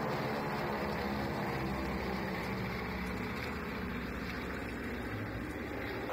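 Propeller aircraft engines of a four-plane classic formation (one twin-engine plane and three smaller single-engine ones) droning overhead, several engine tones blending, easing a little in level in the second half.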